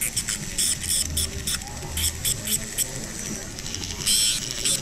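Flexible-shaft rotary tool with a small abrasive disc grinding a gold coin-bezel ring in short, repeated scratchy bursts as the disc touches the metal, with a longer burst about four seconds in.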